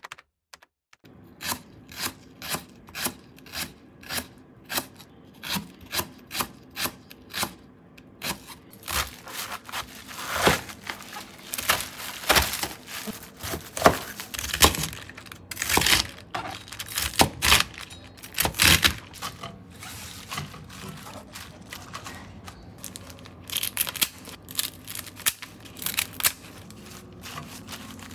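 A run of sharp knocks, evenly spaced at about two or three a second, then louder, irregular knocks mixed with crinkling and rustling.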